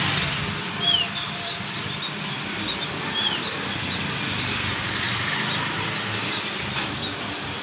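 Caged songbirds chirping: short, high whistled notes and quick falling chirps, a few each second, over a steady background hum of a busy bird market.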